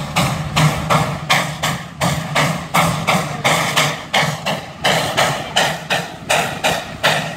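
McLaren steam roller's chimney exhaust beating hard and evenly, about three sharp chuffs a second, as the engine works under heavy load pulling the weight-transfer sledge. A low steady drone runs underneath.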